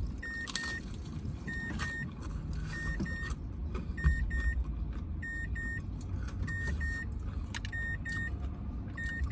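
Car's door-open warning chime: a high double beep repeating about every second and a quarter, set off by the car door being left open, over a steady low rumble.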